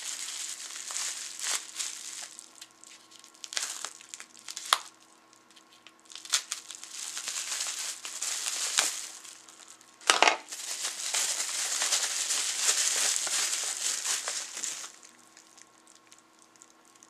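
Plastic bubble wrap crinkling and rustling in irregular bursts as it is pulled off a bottle by hand, with a sharp snap about ten seconds in and a long run of crinkling after it.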